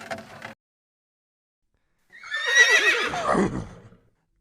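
A horse whinnying once, starting about two seconds in: a quavering call that lasts about two seconds and slides down in pitch toward its end.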